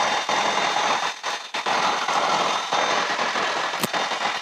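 Piper Warrior's engine running at taxi power, heard inside the cockpit as a steady rushing noise. It dips briefly a little after a second in, and there is a sharp click near the end.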